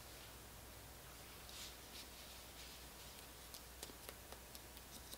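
Near silence: faint room tone with a few faint, short ticks.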